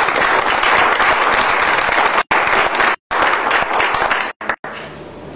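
Audience applauding, a small group clapping steadily, with a few brief moments where the sound cuts out entirely. The applause stops near the end.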